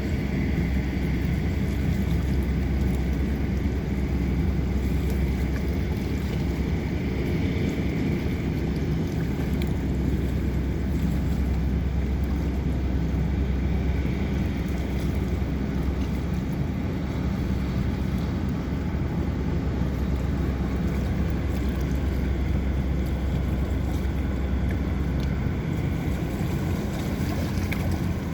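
Steady low drone of a passing boat's engine across the water, with a faint hiss over it; the deepest part of the hum fades near the end.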